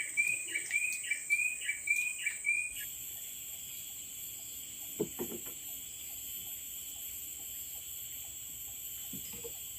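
Forest insects keeping up a steady, high-pitched drone, with a repeated chirping call, a little over two a second, that stops about three seconds in. A couple of faint knocks follow later.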